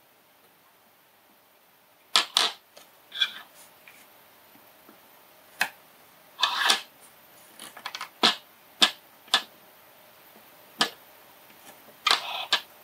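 Metal tweezers clicking and tapping against a small surface-mount circuit board while resistors are placed and soldered, with a few short scrapes. It is quiet for about two seconds, then the irregular clicks begin, some in quick pairs.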